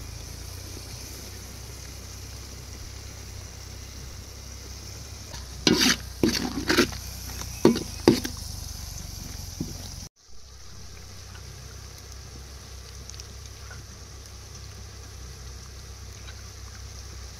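Food frying and sizzling in a cooking pot, with a cluster of loud clattering stirring strokes about six to eight seconds in. The sound drops out briefly about ten seconds in, then the steady sizzle goes on.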